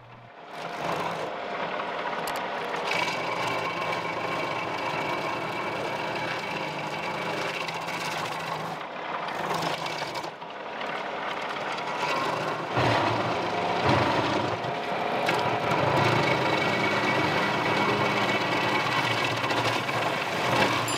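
Baumalight 3P24 PTO stump grinder's cutter wheel grinding into a tree stump, driven by a John Deere 2038R compact tractor's diesel engine running under load. The noise starts about half a second in and grows louder past the middle.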